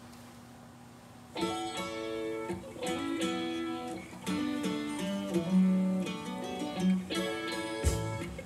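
A guitar-led song playing back from a pre-recorded cassette on a Marantz 5220 cassette deck. The song starts about a second and a half in, after a faint steady hum.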